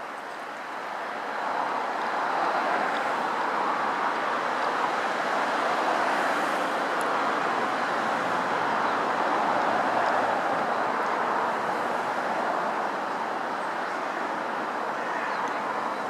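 River water rushing steadily over a shallow, rippled stretch, swelling a little about a second and a half in.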